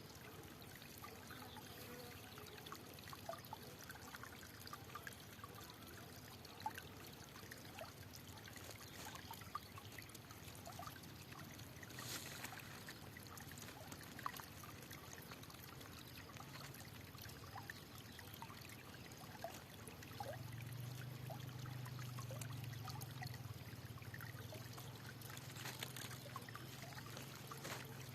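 Faint trickling stream, water running with many small plinks. About twenty seconds in, a low steady hum joins it.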